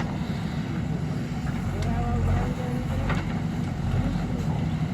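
Diesel engine of a JCB 3DX backhoe loader running steadily under work, a low continuous drone with a fine rapid pulse.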